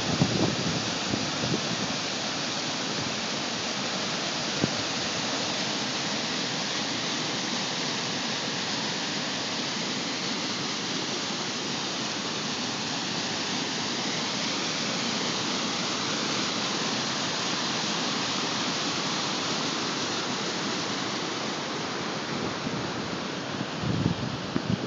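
Rushing water of a swollen creek pouring over rocks in flood, a steady, even rush. Wind rumbles on the microphone near the end.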